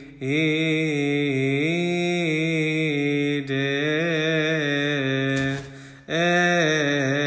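A solo voice chanting a Coptic Orthodox hymn, drawing out long, ornamented melismatic notes that waver in pitch, with a brief break for breath about six seconds in.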